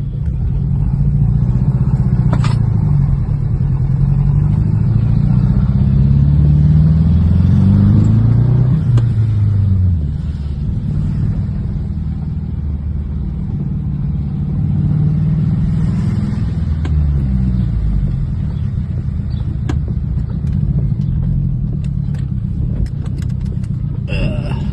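Mazdaspeed 6's turbocharged four-cylinder engine pulling the car along under acceleration. Its pitch climbs, drops at a gear change about nine seconds in, then climbs again and eases off around the seventeenth second.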